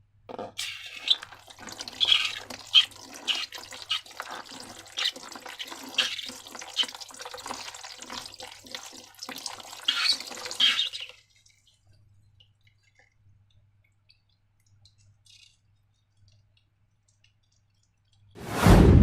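Wet, sticky slime squelching with many small clicks as it is squeezed and worked, for about eleven seconds. Then near silence, and one loud, full-bodied thud-like sound about a second long near the end.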